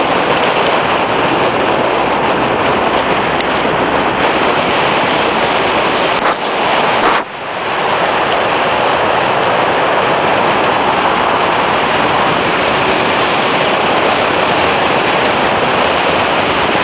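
Steady rush of wind on the microphone of a moving scooter, covering the ride's road and engine noise, with two short dips about six and seven seconds in.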